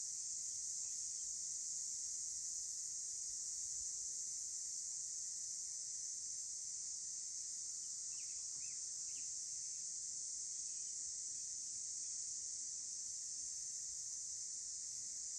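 A steady, high-pitched insect chorus that does not change. A few short bird chirps come through about halfway in.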